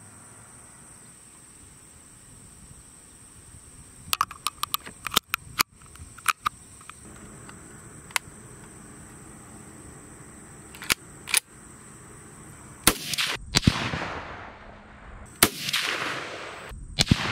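Sharp metallic clicks as the Benelli R1 semi-automatic .30-06 rifle is handled and loaded, then three rifle shots in the last few seconds, each followed by a rolling echo.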